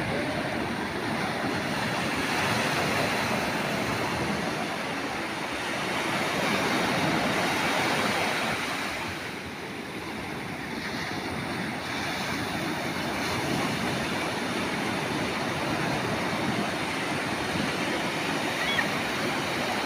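Ocean surf breaking and washing on a beach, a steady rushing noise that swells and eases.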